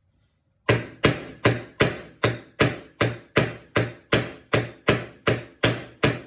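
Steady run of about fifteen hammer blows on a metal punch, about three a second, starting just under a second in, each with a short metallic ring. The hammering is driving out a rust-seized bolt freshly soaked with penetrating oil.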